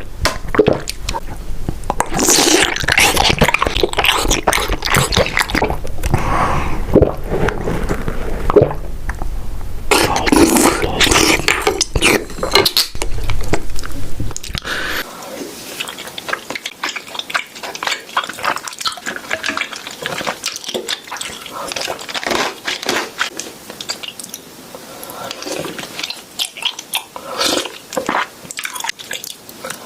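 Close-miked slurping of bubble tea through a straw in loud gulping bursts, then a quieter stretch of wet, sticky chewing of tapioca pearls with many short smacks.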